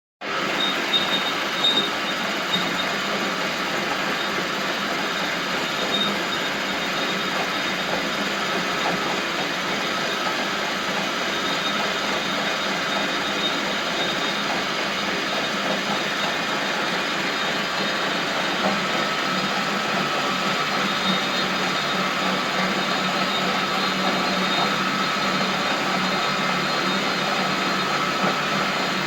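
Metal-turning lathe running steadily, a continuous machine hum; a faint steady whine grows stronger about two-thirds of the way through.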